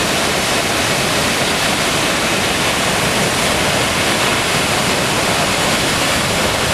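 Large waterfall pouring down a cliff into the pool below: a loud, steady rush of water that does not let up.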